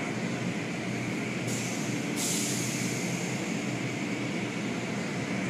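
Tunnel car wash machinery running, heard from inside the car: a steady mechanical rumble under a hiss that gets louder in two steps, about a second and a half and two seconds in.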